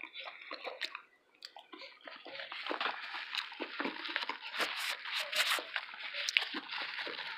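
Close-miked chewing of a mouthful of taco: soft crunching and wet mouth clicks, picking up about two seconds in and running on steadily.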